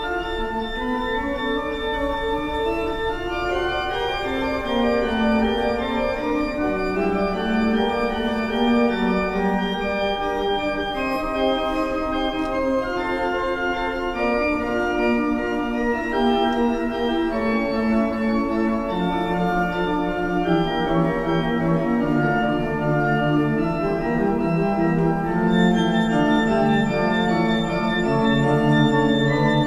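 Pipe organ playing slow, sustained polyphonic music, several held notes sounding together in moving chords. Lower bass notes join about two-thirds of the way through, and the sound grows brighter near the end.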